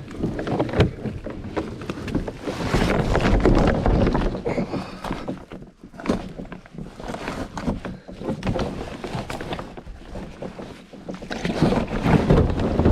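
Loaded plastic sit-on-top fishing kayak being launched into the sea: irregular scraping and knocking of the hull with water sloshing and splashing, and some wind on the microphone.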